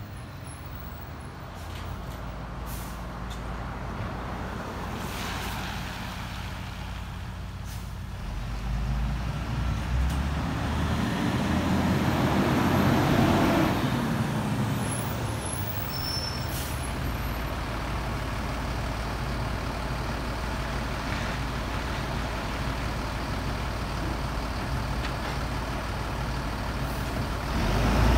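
Garbage truck engine running as the truck approaches, with a car driving past and away about halfway through, its tyre noise swelling and then fading. A short, louder rush of sound comes near the end.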